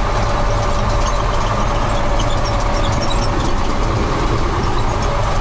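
Ural truck engine running steadily while the truck drives along, heard from inside the cab: an even low drone with a thin steady whine above it and road noise.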